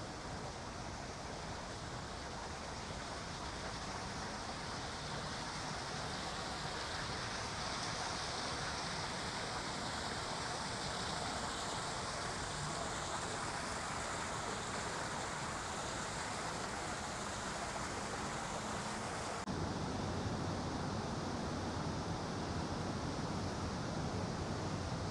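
Rushing river water: a steady rush that grows louder over the first several seconds. About 19 seconds in it switches abruptly to a deeper, fuller rush.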